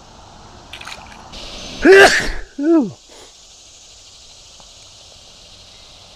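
A person's two short, loud vocal sounds about two seconds in, each rising then falling in pitch, the first starting with a hiss.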